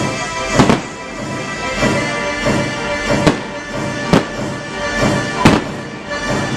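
Fireworks bursting: several sharp bangs a few seconds apart, the loudest a little after the start and near the end, over steady loud music.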